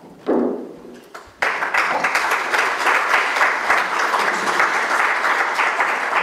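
Audience applauding, starting abruptly about a second and a half in and continuing steadily. A short, low sound comes just before it, near the start.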